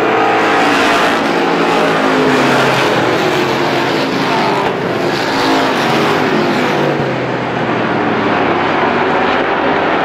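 A pack of Strictly Stock short-track race cars running hard together, several engines heard at once, their pitches rising and falling as the cars pass.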